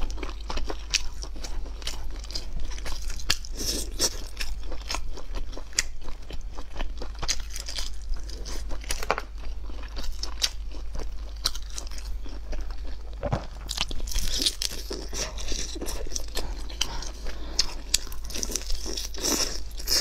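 A person biting and chewing roast duck close to the microphone, with many sharp, irregular crunches and wet chewing sounds.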